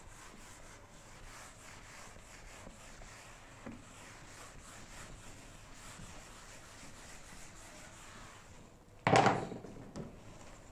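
Whiteboard being wiped with a duster and then a cloth: faint, repeated rubbing strokes. About nine seconds in comes a short loud knock against the board, then a fainter one a second later.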